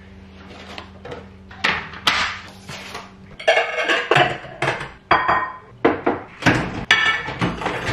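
Ceramic plates and bowls clinking and knocking together as they are taken out of a dishwasher rack and stacked into a cupboard. A few scattered knocks give way, about three and a half seconds in, to a quick run of ringing clinks.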